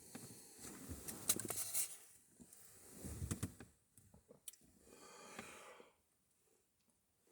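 A man's breathing: a few noisy breaths and exhales, with small clicks and rustles of handling in a small enclosed space.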